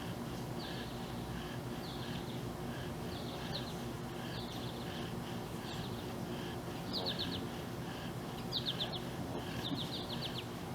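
A songbird repeating a short, high chirping trill about every second and a quarter, over a steady low hum.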